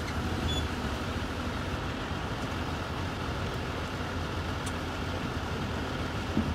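An engine idling steadily with a low, even rumble, with a brief knock near the end.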